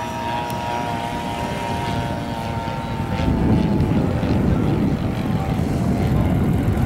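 Radio-controlled model airplane's motor and propeller droning overhead, the pitch sinking slightly as it passes. About three seconds in, a louder rough low rumble rises and covers it.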